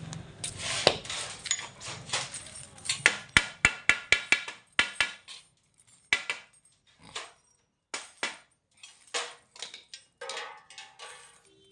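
A rapid, irregular series of sharp knocks and metallic clinks, some ringing briefly, coming thickest about three to five seconds in and then thinning out to scattered knocks: metal parts or tools being knocked and handled during battery repair work.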